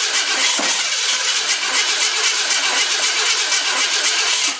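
Starter cranking the freshly rebuilt V8 of a 1969 Mercury Cyclone, turning the engine over steadily without it catching. The engine won't start while its ignition timing is being adjusted. The cranking stops abruptly at the end.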